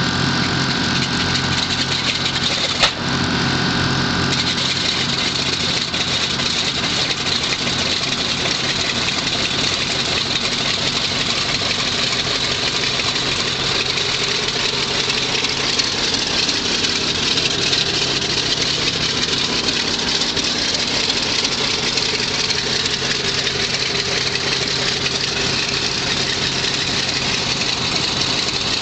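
F4U-1D Corsair's Pratt & Whitney R-2800 radial engine running steadily at idle, with a single sharp pop about three seconds in.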